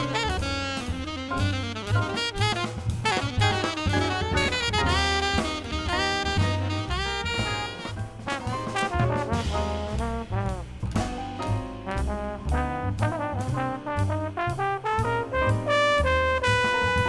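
A small jazz group playing: alto saxophone and trombone lines over bass and a drum kit with steady cymbal strokes.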